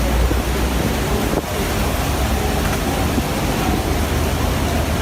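Wind buffeting the microphone over rushing, crashing sea water, a steady loud roar with heavy low rumble.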